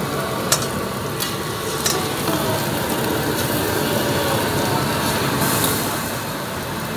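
Eggs sizzling on a flat steel griddle, with a metal spatula clicking and scraping against the griddle a few times in the first two seconds.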